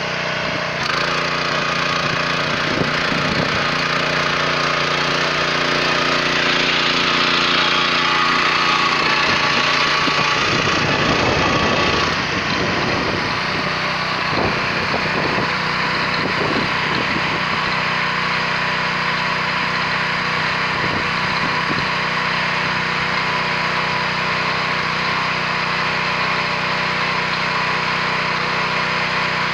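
WEIMA 1000N walk-behind tractor's engine running steadily under load as its rotary tiller cuts mustard into the soil. Around the middle the sound turns rougher for several seconds, then settles back to a steady run.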